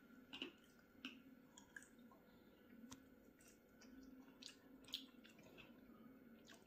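Faint chewing of soft bread: scattered small mouth clicks and smacks.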